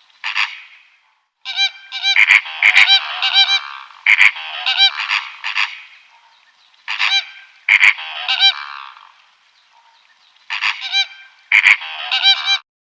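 A bird honking loudly over and over, in bursts of several calls separated by short pauses. The calls stop abruptly near the end.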